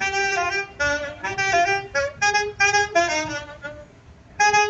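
Saxophone playing an unaccompanied melody of short, separate notes, with a brief break about four seconds in before the next phrase starts.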